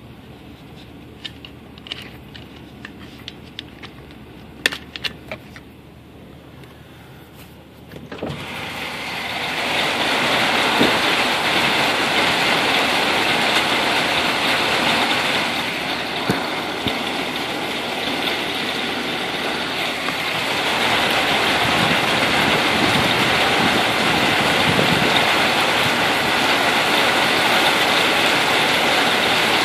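Scattered drops ticking sharply on a car, then about eight seconds in a sudden loud, steady rush of heavy thunderstorm rain pouring down.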